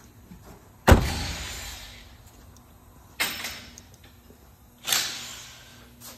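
Four sharp bangs, each ringing out and dying away over about a second in a large echoing shop; the first, about a second in, is the loudest.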